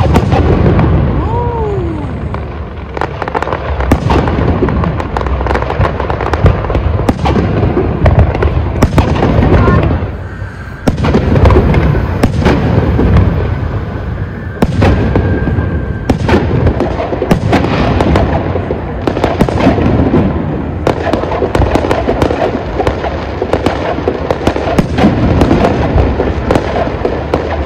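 Fireworks display: a dense, continuous run of loud bangs and crackling bursts, with a short lull about ten seconds in.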